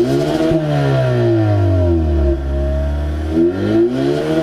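2024 Hyundai Sonata N Line's 2.5-litre turbocharged four-cylinder heard at its dual exhaust tips, revved while standing: the revs fall back from a peak over about two seconds, then climb again to a second peak near the end.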